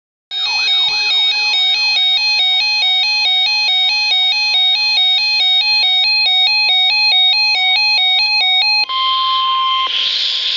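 Emergency alert broadcast tones: a fast electronic beeping pattern that alternates between two pitches for about eight and a half seconds, then switches to a steady high alert tone. Hiss joins the tone near the end.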